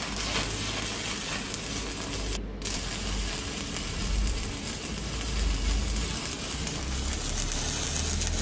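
Stick (arc) welding: the electrode's arc crackles and sizzles steadily as the rod burns onto the steel, with a brief dip about two and a half seconds in.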